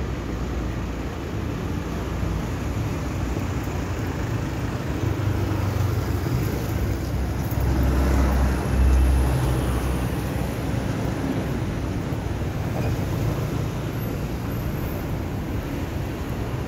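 Steady street traffic rumble, with a motor scooter passing close by about eight seconds in, the loudest moment.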